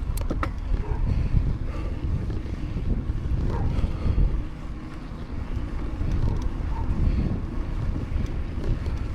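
Wind buffeting the microphone of a camera on a moving bicycle, a steady low rumble with a few brief clicks about half a second in.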